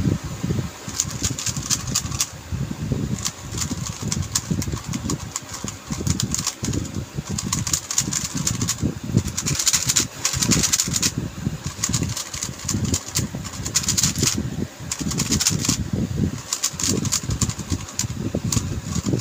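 Plastic speedcube being turned fast by hand: bursts of rapid clicking layer turns with short pauses between them, over low rumbling handling noise.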